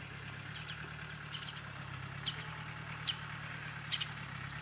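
An off-road vehicle's engine running steadily at a low, even idle, with short sharp high-pitched clicks about once a second on top.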